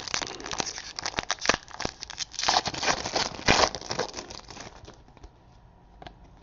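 Trading cards and their packaging being handled: irregular crinkling and rustling with small clicks, dying away about five seconds in.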